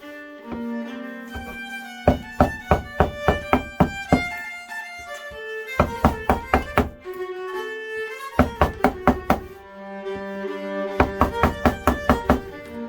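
Folk fiddle music with bowed string notes. Four runs of rapid, sharp knocks, about five or six a second, come in at intervals.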